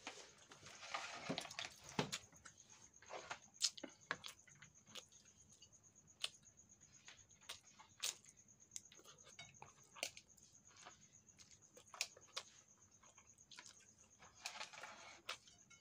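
Plastic spoon scooping cooked rice out of a plastic colander onto a plate: soft scraping rustles around a second in and again near the end, with scattered light clicks and taps throughout.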